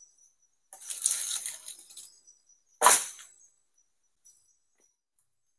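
Plastic tarpaulin rustling and crinkling as it is pulled and adjusted over a pole-frame roof. There is a longer rustle, then a sharper one about three seconds in, over faint steady insect chirring.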